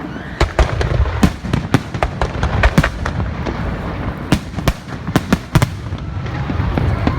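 Fireworks going off: a rapid, irregular string of sharp bangs and pops, several a second, over a continuous low rumble.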